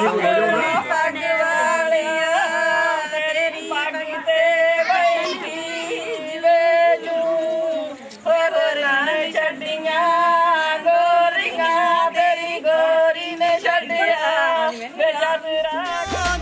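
Women's voices singing unaccompanied, a high melody with long held, wavering notes.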